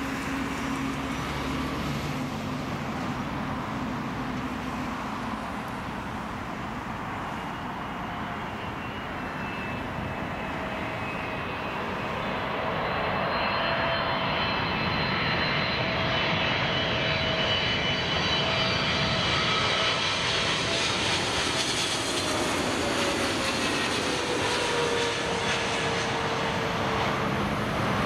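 Turkish Airlines Boeing 777-300ER's twin GE90 turbofans running on final approach, a steady roar with a high whine that grows louder as the jet comes overhead. Near the end the engine tones drop in pitch as it passes.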